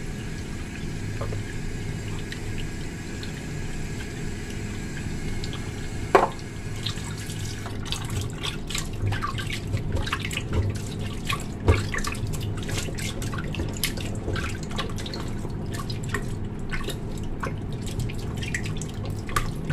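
Chicken wings being washed by hand in a steel bowl of water with salt and cornstarch. A steady trickle runs at first; from about eight seconds in there are quick, repeated wet splashes and sloshes as the hands rub and squeeze the wings.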